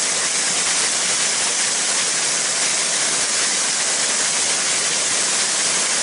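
Waterfall running low: many thin streams of water falling from a moss-covered rock dome and splashing into a pool, a steady, even hiss of falling water.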